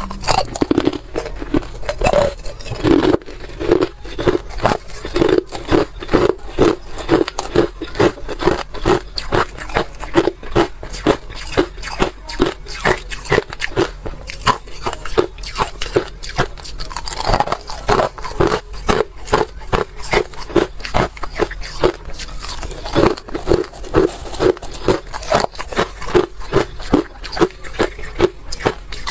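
Crushed ice being bitten and chewed close to a clip-on microphone: a steady run of sharp crunches and cracks, two or three a second.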